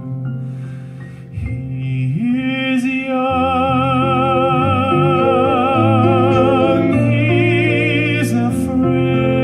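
Male tenor voice singing with wide vibrato over sustained instrumental chords. About two seconds in the voice swoops up to a long held note, then moves on through further sustained notes.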